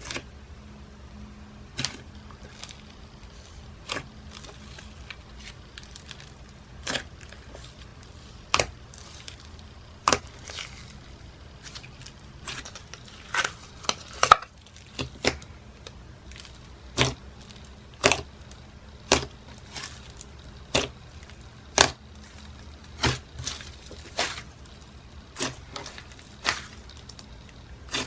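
Butter-and-jelly slime being stretched and pressed, making sharp bubble pops every second or two.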